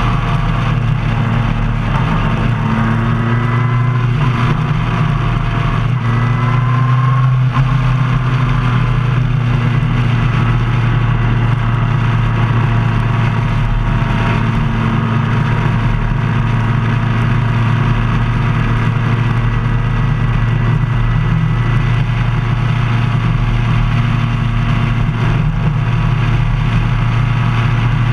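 Motorcycle engine running at road speed, heard from the bike itself, with wind and road rush. Its note rises and falls a few times in the first eight seconds or so, then holds steady.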